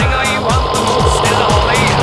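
Music with a steady kick-drum beat, about two a second, and a stepping bass line, over a tractor's diesel engine running.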